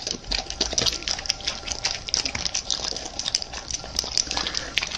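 A dog licking and snuffling at a treat on the floor: a run of irregular wet smacking clicks.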